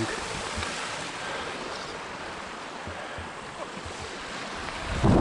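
Shallow river running over rocks, a steady rushing hiss. A sudden loud low rumble on the microphone right at the end.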